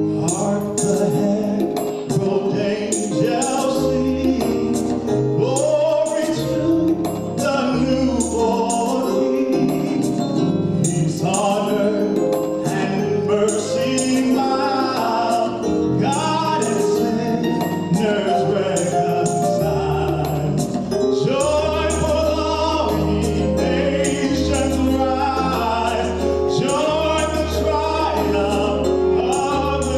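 Gospel choir singing with instrumental accompaniment. A deep, sustained bass line comes in more strongly about twenty seconds in.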